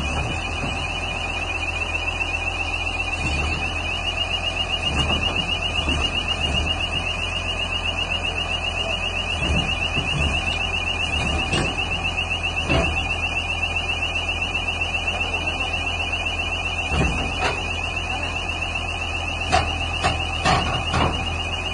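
Travel warning alarm of an EvoQuip Colt 600 tracked screening plant sounding continuously, a high-pitched fast-pulsing tone, as the machine tracks down off a lowbed trailer. A low steady engine drone lies beneath it, and a few sharp knocks come near the end.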